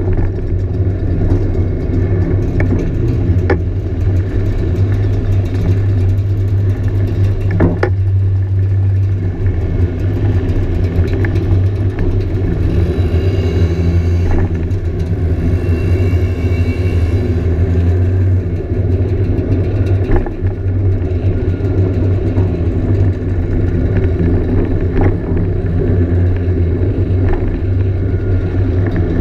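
Scooter engine running at a steady cruise, heard from on board the moving scooter: a loud, even low drone, with other scooters riding close ahead.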